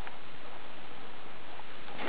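Water drops falling on ice in a cave: a few faint, sharp drip ticks, one near the start and two near the end, over a steady hiss.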